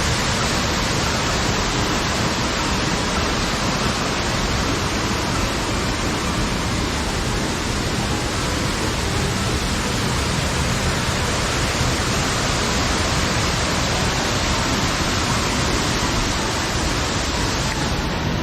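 A waterfall's falling water: a steady, even rush.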